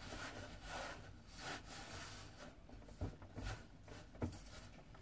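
A hand working a crumbly flour-and-milk dough in a stainless steel bowl, with faint rubbing and squishing. A few dull knocks come about three and four seconds in.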